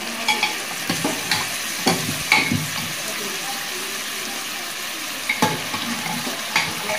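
Chicken pieces, potatoes and onions sizzling in oil and spice paste in a metal kadai, a steady frying hiss. Over it a steel spatula stirs, scraping and knocking against the pan in clusters in the first half and again near the end.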